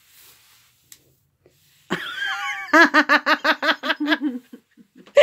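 A woman giggling close to the microphone. About two seconds in she lets out a high squeal, then laughs in a quick run of about seven 'ha's a second that trails off.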